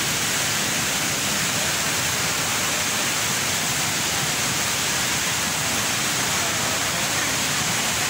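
Jewel Changi's Rain Vortex indoor waterfall: a steady, unbroken rush of falling water that fills the space.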